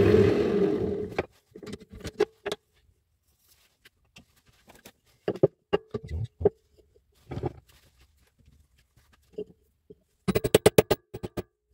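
Wood lathe motor running with a steady hum, then switched off and winding down to a stop about a second in. Scattered knocks and clatter of wood being handled follow, with a quick rattle of clicks near the end.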